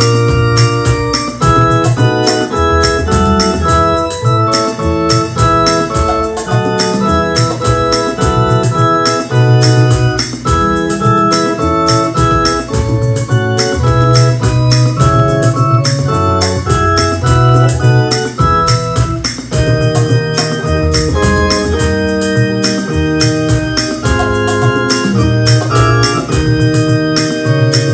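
Electronic keyboard played with an organ-like voice: a hymn tune in held chords over a moving bass line, with a steady percussion beat underneath.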